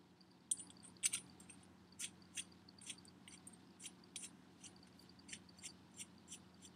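Faint, irregular light metallic ticks, two or three a second, as the compressor nut is turned by hand onto the shaft of a K03 turbocharger, at the centre of the aluminium compressor wheel.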